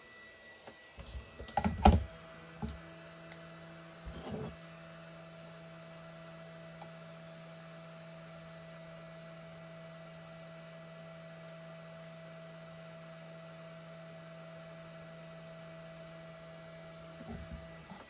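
A few clicks and knocks from tools being handled on the bench, then a steady electrical hum of several fixed tones that stops shortly before the end: a power-hungry soldering station under load.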